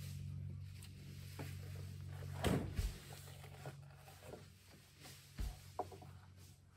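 Lumber boards knocking and thudding on a trailer's wooden deck as a long board is pulled from a stack and lifted, the loudest knock about two and a half seconds in, with a few lighter knocks later. A low steady hum runs underneath for the first few seconds.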